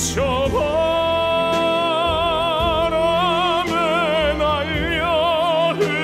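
Male baritone singing in an operatic style over a backing accompaniment, holding one long note that is steady at first and then swells into a wide vibrato, ending just before the close.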